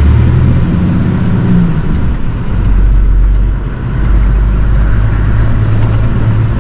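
Iveco HGV's diesel engine and road noise heard from inside the cab while driving: a low steady drone whose pitch rises briefly about a second in.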